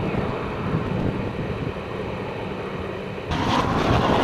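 Wind rumbling on the camcorder microphone over a steady low hum. A little over three seconds in, the sound abruptly turns louder and hissier.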